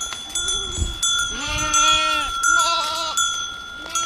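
Goats bleating: a long bleat about a second in, then a shorter, wavering one, with a steady high whine underneath.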